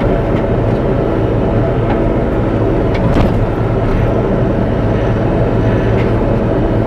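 Bobcat E42 mini excavator's diesel engine running steadily under work, with a light knock about three seconds in.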